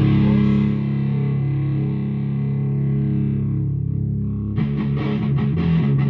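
Electric guitar through a clean amp and the Evil Twin fuzz pedal, its germanium fuzz cascaded into its silicon fuzz: a held fuzzy chord rings and slowly fades. About four and a half seconds in, new notes and chords are picked in quick succession.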